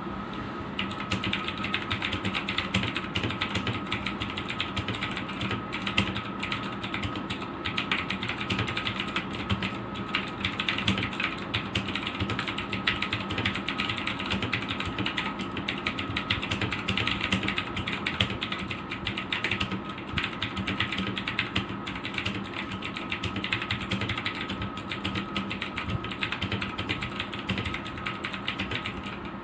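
Tecware Phantom mechanical keyboard with clicky Outemu Blue switches being typed on in a steady, rapid run of key clicks.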